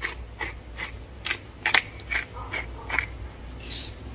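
Pepper grinder being twisted over a pan of vegetables, giving a run of short, crunchy grinding clicks at about two to three a second.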